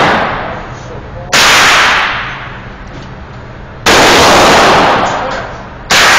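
Three gunshots about two seconds apart, each loud crack echoing away over a second or more.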